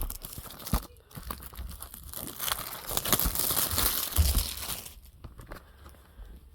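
Plastic shrink-wrap being torn and crinkled off a Blu-ray case: a dense crackle with scattered clicks that dies down about five seconds in.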